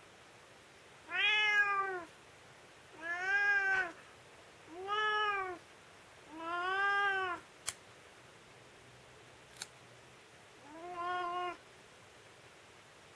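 Tabby cat meowing in protest five times while her claws are clipped, each meow about a second long and rising then falling in pitch. Two sharp clicks of the pet nail clipper cutting a claw come between the fourth and fifth meows.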